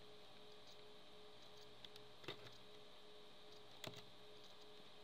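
Near silence: a faint steady hum of room tone, broken by two soft computer-mouse clicks about two and four seconds in.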